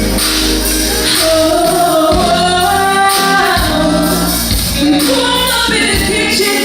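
A female singer performs live with a band, holding long sung notes over bass and drums.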